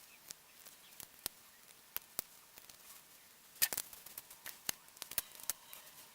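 Sharp, irregular clicks and snaps of small plastic and metal phone parts being pried and pulled apart by hand, with a quick cluster of louder snaps about three and a half seconds in.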